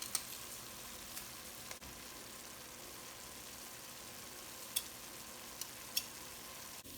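Chicken pieces with chopped carrots, celery and onion sizzling steadily in olive oil in a soup pot, with a few light clicks.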